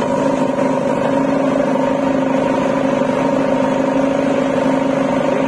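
JCB 3DX backhoe loader's diesel engine idling steadily at a constant pitch.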